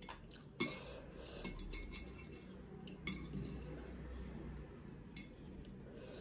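Chopsticks tapping and clinking against a plate while picking up noodles: a few light, scattered clicks, the clearest about half a second in, near three seconds and just past five seconds.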